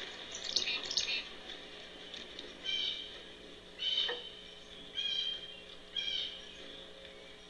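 A bird calling: four short calls about a second apart, starting nearly three seconds in, over a faint steady hum.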